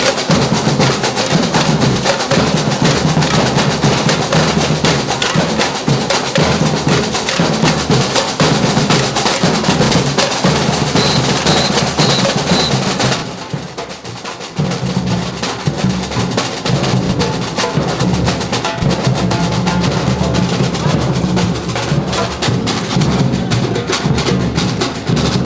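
Street drum band playing a dense, driving rhythm together. The drumming drops off briefly about halfway through, then comes back in full.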